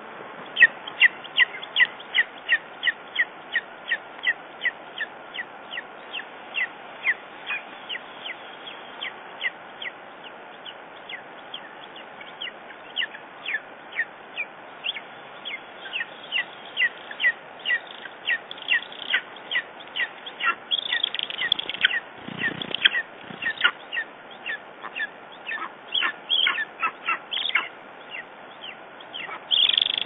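Lesser spotted eagle chick begging for food with a steady series of short, high calls, about two a second. The calls grow louder and fuller about twenty seconds in and again at the very end.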